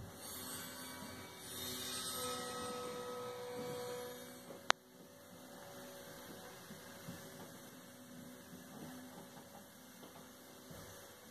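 Steady low electrical hum with faint steady tones from a TV and DVD player as the disc loads. For the first few seconds a louder tonal sound from the TV's speakers swells, then cuts off with one sharp click, leaving only the quieter hum.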